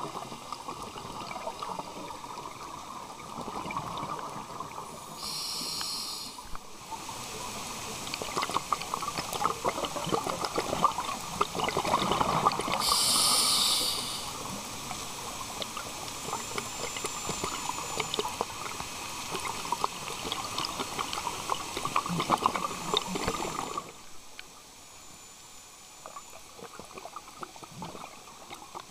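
Underwater recording of a scuba diver breathing through a regulator: two loud hissing breaths, with bubbling exhaust noise and constant fine crackling in between. It turns quieter about 24 seconds in.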